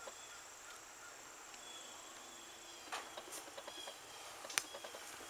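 Faint background ambience: a steady low hiss with two faint, high, drawn-out chirps and a couple of soft clicks, about three and four and a half seconds in.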